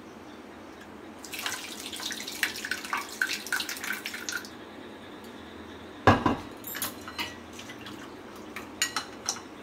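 Thick cooked red lentil (masoor dal) soup poured from a pan into a stainless steel mesh strainer over a bowl, splashing and trickling for about three seconds. About six seconds in comes a single sharp knock, followed near the end by light clicks of a metal spoon in the strainer.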